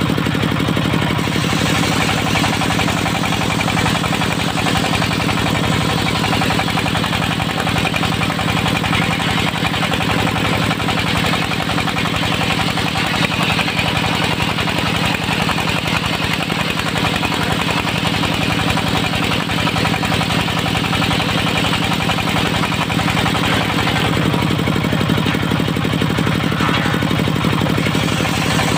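Circular sawmill blade driven by a Dongfeng diesel engine, ripping a board into 2 cm planks. The diesel runs steadily throughout, and the hissing whine of the blade cutting wood comes in about a second in and eases off a few seconds before the end as the blade spins free.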